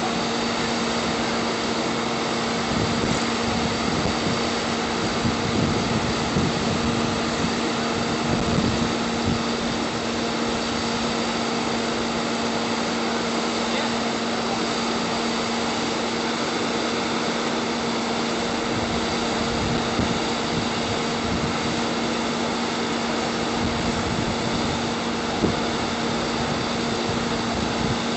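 A heavy engine running steadily, a constant hum with a rushing hiss over it. A few small knocks come in the first third, and one sharp pop near the end.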